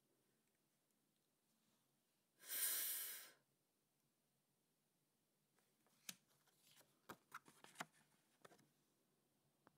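A person voicing the phonics sound /f/: a single breathy "fff" hiss lasting about a second. A few seconds later come several light taps and rustles as paper flashcards are handled and laid down.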